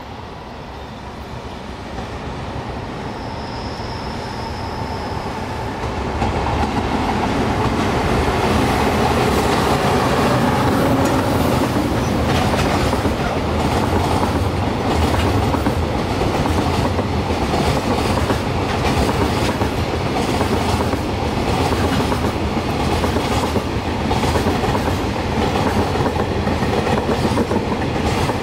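Freight train of container wagons approaching and rolling past. The rumble builds over the first six seconds, then runs on steady and loud, with the clatter of wheels over rail joints.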